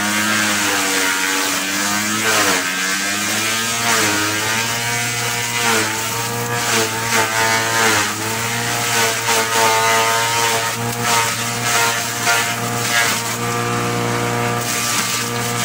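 Electric forage chopper running loudly as bundles of green grass stalks are fed in. The motor's pitch sags and recovers each time a bundle hits the blades, over a steady hum and the crackle of stalks being cut.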